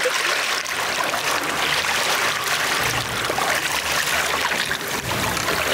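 Seawater rushing and splashing along the boat's side around a sailfish held by its bill at the surface before release. A low rumble joins about three seconds in.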